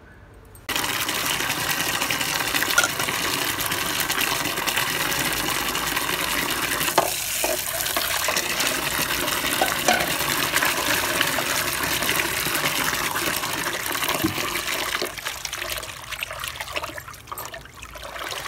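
Tap water running steadily while fresh mint leaves are washed to rinse out sand; the flow comes on suddenly about a second in and thins to irregular splashing near the end.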